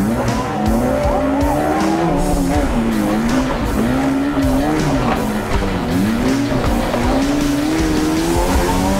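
An off-road 4x4's engine revving up and down again and again, with music playing behind it.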